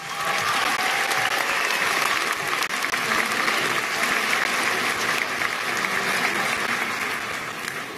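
Large audience applauding, which starts at once and tapers off near the end.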